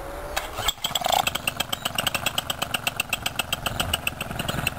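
Paramotor engine starting about a second in, then running at idle with an even, rapid pulsing.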